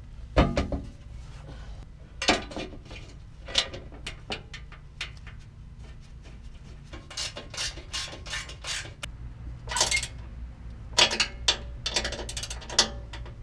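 Hand ratchet wrench clicking in short, irregular runs while driving the bolts that hold a steel skid plate under the truck. The clicks come over a steady low hum.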